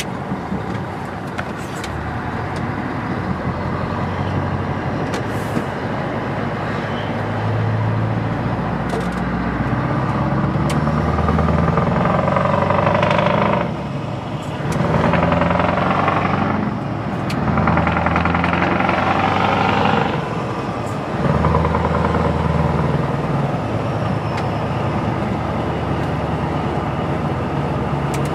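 Scania 164 L 480's V8 diesel engine pulling the truck up through the gears, heard from inside the cab. The engine sound swells and drops briefly three times, about halfway through, as gears are changed, then eases back near the end.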